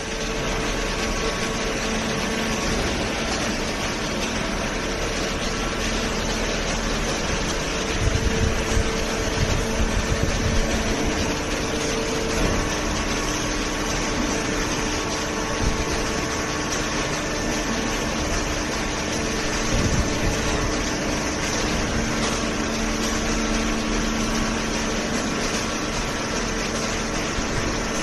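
Hydraulic cardboard baler line running steadily: a constant machine hum with a few steady tones over an even noise, slightly louder and rougher for a few seconds about a third of the way in.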